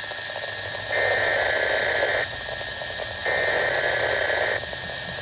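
Two bursts of buzzing digital data tones over a weather radio, each about a second and a half long and a second apart, with steady radio hiss in between. These are SAME header bursts that mark the start of an Environment Canada weekly test alert.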